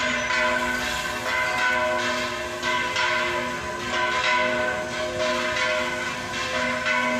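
Church bells pealing, struck again and again so that their tones ring on over one another.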